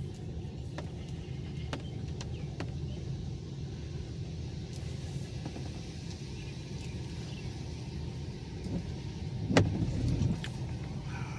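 Car cabin noise: a steady low engine and road rumble, with scattered light ticks of rain on the windshield. Near the end a windshield wiper sweeps across the glass with a sharp knock.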